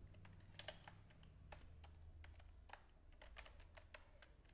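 Faint typing on a computer keyboard: a dozen or so irregular keystroke clicks, over a low steady hum.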